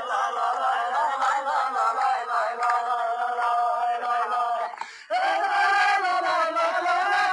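A group of voices chanting in long, wavering held notes, breaking off briefly about five seconds in.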